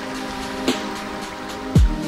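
Background music with a steady beat: held chords, a sharp snap about a third of the way in, and a deep bass drum hit falling in pitch near the end.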